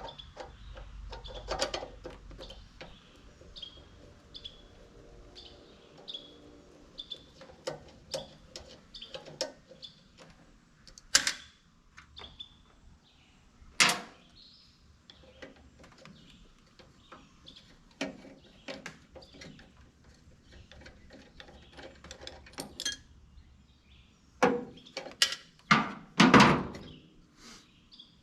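Scattered clicks, taps and knocks of hand tools and metal parts as a carburetor is worked loose from a push mower's engine, with a few louder clunks near the end. A bird chirps repeatedly in the background during the first half.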